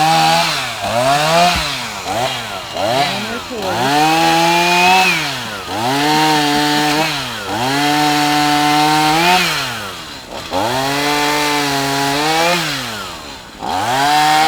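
Chainsaw engine revved again and again. It gives quick short blips of throttle at first, then several longer pulls held at high speed for a second or two, each dropping back to idle.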